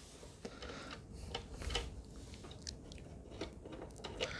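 Faint scattered light clicks and crinkles of hands handling the PC case and its parts.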